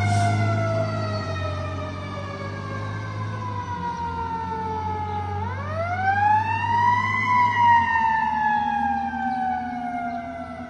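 Fire engine siren sounding a slow wail: a long falling tone, then about halfway through a rise followed by another slow fall. The truck's engine runs low underneath and fades out in the second half.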